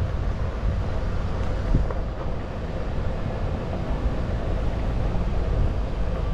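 Wind buffeting the microphone, a steady low rumble that swells and fades, with a faint steady hum underneath and a single small tick about two seconds in.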